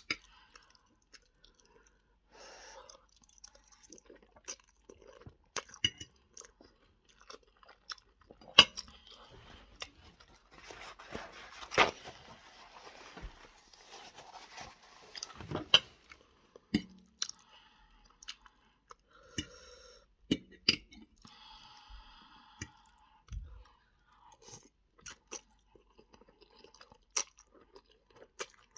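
A person chewing a meal of spaghetti with fish and chicken close to the microphone: wet mouth sounds with sharp clicks scattered throughout, and a stretch of denser chewing noise in the middle.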